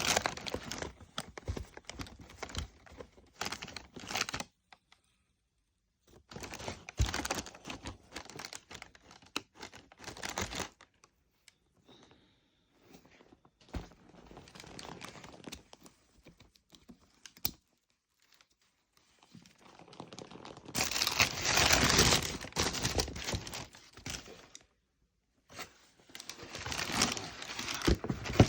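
Packaging paper crinkling and rustling as it is handled, in irregular bursts with short pauses between them, loudest about three-quarters of the way through.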